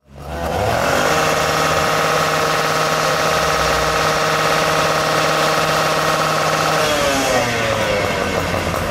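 Diesel engine of a new Seagrave FDNY fire engine running steadily at raised revs. About seven seconds in its note falls in pitch as the truck pulls out of the firehouse bay.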